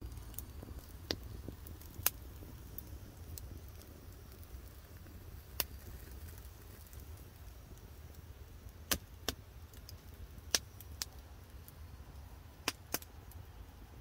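Newly lit wood fire of split kindling and dry grass crackling in an earthen fireplace. Sharp, scattered pops come every second or so over a low, steady rumble.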